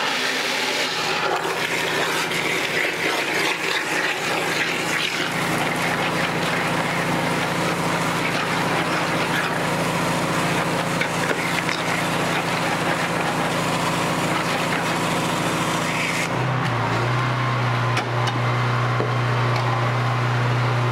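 Pressure washer running while a Mud Sucker on its lance sucks a slurry of water, sludge, sand and gravel out of a bucket: a steady rushing hiss over the machine's hum. Near the end the rushing stops and the pressure washer's hum comes to the fore.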